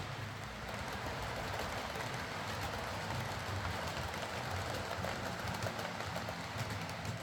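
Hornby OO gauge Class 43 HST model running on track with its newly fitted replacement motor: a steady motor hum and wheel rumble, with light clicks.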